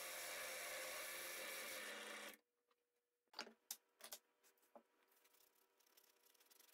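Benchtop drill press running with its bit in a small wood block, with a steady motor hum, until it stops abruptly about two seconds in. A few light knocks of wood follow, then faint rubbing of rolled sandpaper inside the drilled hole.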